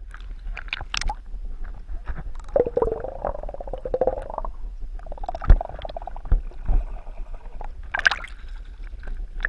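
Lake water heard through a camera held underwater: muffled gurgling and sloshing over a low rumble, with a muffled wavering drone twice in the middle and a few dull knocks, the loudest about five and a half seconds in.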